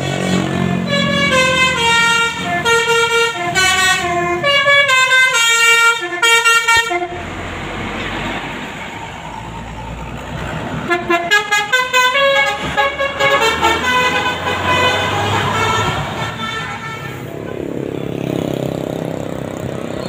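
An Indonesian 'telolet' Basuri musical bus horn plays a quick tune of stepped notes for several seconds. Then comes the rushing noise of the coach passing, a second short burst of horn notes about eleven seconds in, and more engine and road noise.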